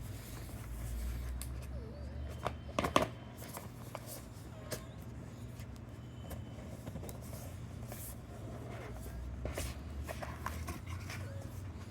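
Phone box and packaging being handled and opened: scattered rustling and sharp clicks of cardboard and plastic, loudest in a quick cluster of clicks about three seconds in, over a steady low hum.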